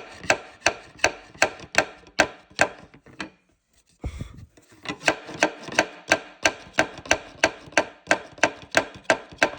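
Hammer tapping the broken-off nub of a brad nail flush into a wooden crate: quick, light, sharp strikes at about three a second, with a short pause about three seconds in before the tapping resumes.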